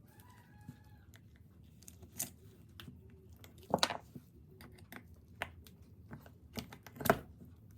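Metal parts of a disassembled rotary hammer drill being handled on a workbench: scattered small clicks and knocks, the two loudest about four seconds in and near the end.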